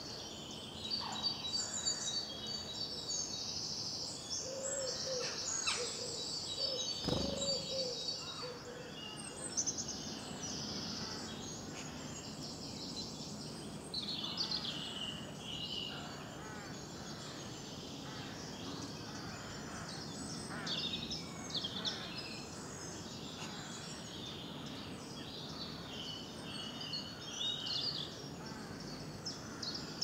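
Spring woodland birdsong: several songbirds singing at once, overlapping high trills and phrases throughout, with a lower repeated call from about 5 to 8 seconds in and a single sharp knock about 7 seconds in.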